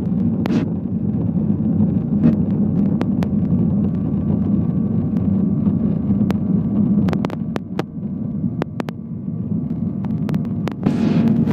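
Boeing 737-800 airliner heard from inside the cabin while it rolls along a concrete runway: a steady low engine and rolling rumble, with scattered sharp clicks and knocks throughout.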